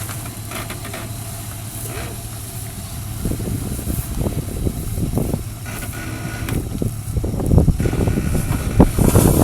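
Off-road 4x4's engine running at a low crawl, with irregular knocks and scrapes from about three seconds in, growing toward the end, as the axle's differential housing drags over the rocks.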